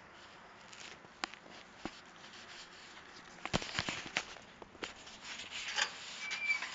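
Faint, scattered clicks and short rubbing noises, busier in the second half, ending in one sharp, louder click.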